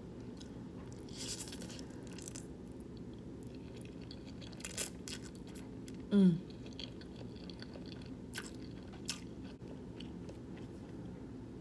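Close-miked eating sounds of a person chewing spaghetti and meatballs: wet chewing with scattered mouth clicks and a few crunchy bites, over a steady low hum. About six seconds in comes one short, loud voiced sound that drops in pitch.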